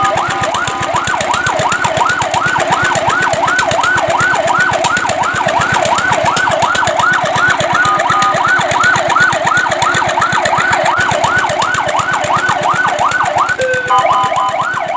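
Fire truck siren in a fast yelp, rising and falling about three times a second, broken a few times by short steady tones.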